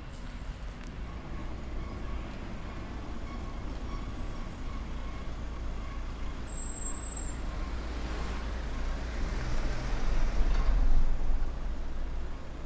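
Street ambience with a motor vehicle's engine running close by, the low rumble swelling to its loudest about ten seconds in.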